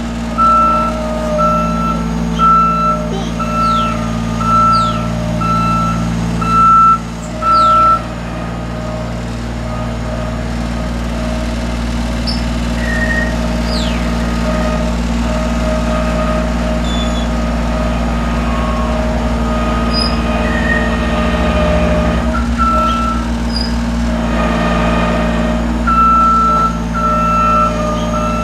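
Bobcat skid-steer loader's engine running steadily, with its backup alarm beeping at an even pace for the first several seconds, again briefly later, and again near the end.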